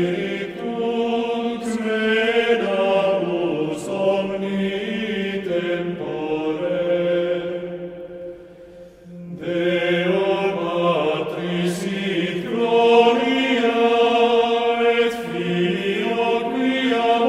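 Sung chant: voices holding long, slow notes, breaking off briefly about eight seconds in and then resuming.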